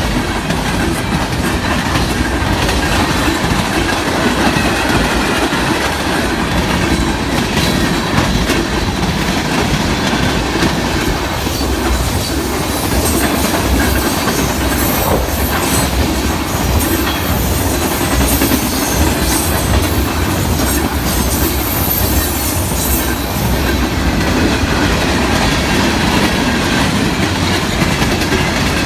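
Cars of a Norfolk Southern manifest freight train rolling past: a steady clickety-clack of wheels over rail joints. A high wheel squeal runs through the middle stretch.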